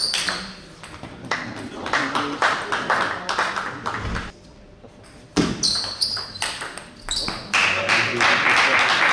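Table tennis rally: the ball clicking off the bats and the table in quick succession, stopping about four seconds in. Near the end comes a long stretch of voices and crowd noise in the hall.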